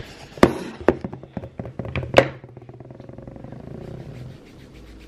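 A few sharp knocks and thuds as a handheld camera is moved and set down on a table, then a tissue rubbing on a fleece sleeve to wipe off a food stain. A low steady hum sits under the knocks and stops about four seconds in.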